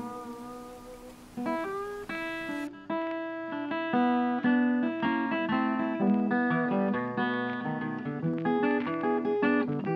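Background music: an acoustic guitar plucking a quick melody of short notes.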